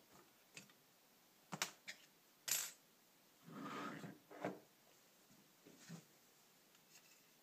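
Small metal carburetor parts clinking and being set down on a hard work surface: a few sharp clicks, the loudest about two and a half seconds in, then a brief scrape and another click.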